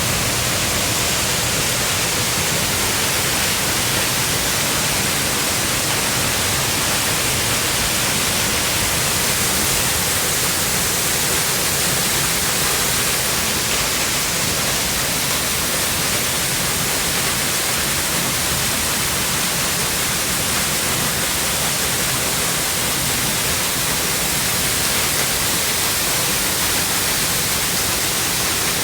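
Waterfall: falling water making a loud, steady rush.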